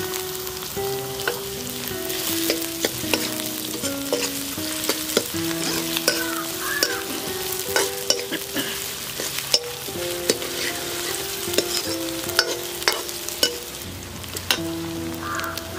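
Chopped onions sizzling in hot desi ghee in a steel kadhai, with a steel ladle stirring them and clicking and scraping against the pan.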